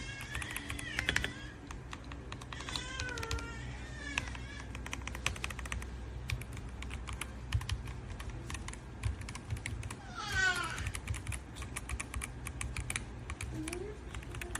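Typing on an RK M75 wireless mechanical keyboard with PBT double-shot keycaps and full foam dampening: a steady, fast patter of key presses. A few short high-pitched sounds sit over it, the clearest a falling one about ten seconds in.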